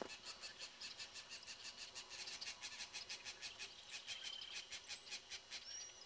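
Faint outdoor wildlife calls: a rapid series of high chirps, about five a second, with a short whistled bird note about four seconds in and a higher one near the end.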